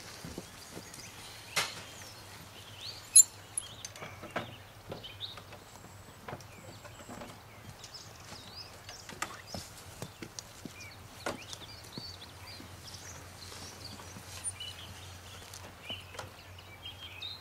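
Birds chirping, with scattered knocks and clicks from motorcycles being pushed by hand and set on their stands. The loudest is a sharp click about three seconds in. No engine is running.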